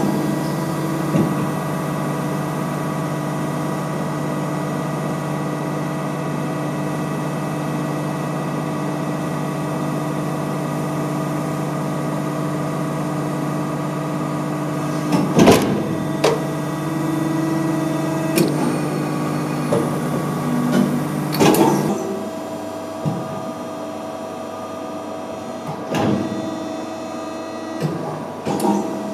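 Muratec press brake running: a steady machine hum with clear steady tones, broken by sharp mechanical clunks about fifteen and twenty-one seconds in. About twenty-two seconds in the hum drops off, leaving a few lighter knocks.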